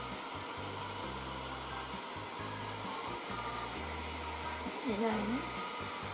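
A handheld hair dryer blowing steadily, drying a kitten's wet fur after a shampoo. A short call that bends in pitch cuts in briefly about five seconds in.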